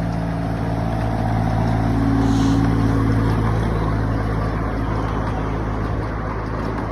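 Train engine running steadily as it passes, loudest about two and a half seconds in. The hum then fades into an even rumble.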